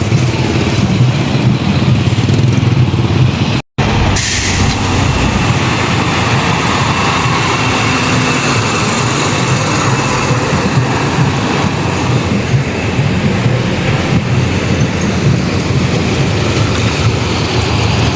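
Motor vehicle running with steady engine and road noise, cut by a brief gap of silence a little under four seconds in.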